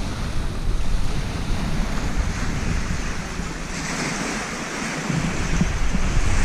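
Wind buffeting the microphone over small lake waves washing onto a rocky shore: a steady rush with uneven low rumbles.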